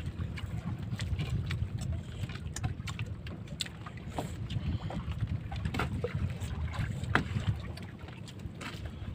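Wind rumbling on the microphone, with scattered light clicks and clinks of plates, bowls and utensils.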